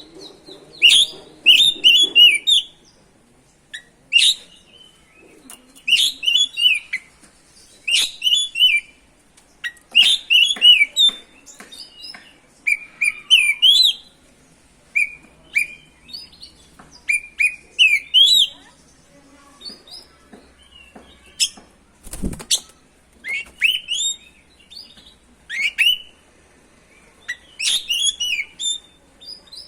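Oriental magpie-robin (kacer) singing in full song: short, rapid phrases of high chirps and whistles, repeated every second or two with brief pauses. A single sharp knock sounds about three-quarters of the way through.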